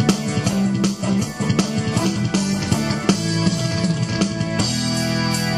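Music with a steady drum-kit beat over a bass line; a held chord comes in near the end.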